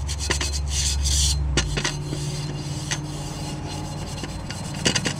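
Green scouring pad scrubbing the metal rear belt pulley of a Harley-Davidson Sportster, fast back-and-forth rasping strokes. The strokes grow sparser about a second and a half in, with a few sharp clicks.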